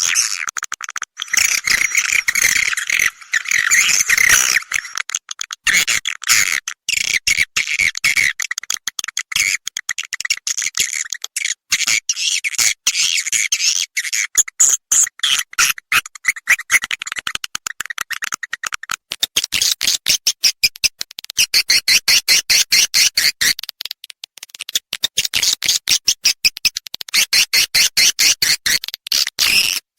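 Swiftlet calls: dense, rapid chirping and twittering that turns into long runs of fast, even clicking trills about two-thirds of the way through. It is a recorded swiftlet call sound of the kind played to lure edible-nest swiftlets into a nesting house.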